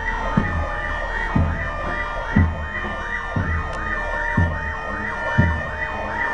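Fire engine sirens yelping over and over, several overlapping, rising and falling about three times a second. A deep thump sounds about once a second underneath.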